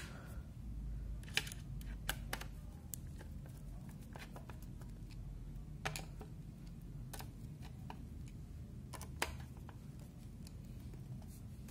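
Screwdriver turning screws into the thin sheet-steel case of a Dahua XVR1B04-I DVR, with scattered sharp clicks and taps of metal on metal as the case is handled.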